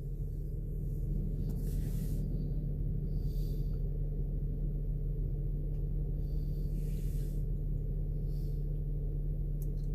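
A steady low hum with a constant tone, and a few faint, brief swishes over it.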